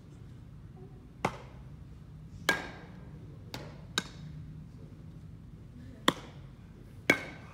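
Six sharp, irregularly spaced knocks of a baseball being hit, fielded and thrown back in a ground-ball drill. The two loudest, about two and a half seconds in and near the end, ring briefly.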